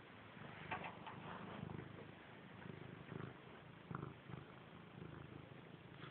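Domestic cat purring close to the microphone, a low, steady purr, with a few faint clicks.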